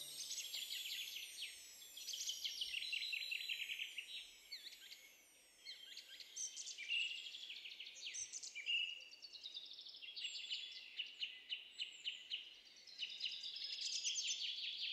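Birds singing and chirping: many quick, high chirps and short falling trills overlapping, dipping briefly about five seconds in.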